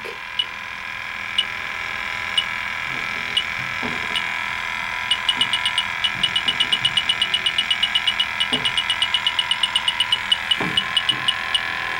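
Fieldpiece SRL8 heated-diode refrigerant leak detector beeping: slow single beeps about once a second, then from about five seconds in a fast run of beeps about five or six a second that slows again near the end, over a steady high hum. The fast beeping is the detector alarming on R410A refrigerant leaking at the evaporator.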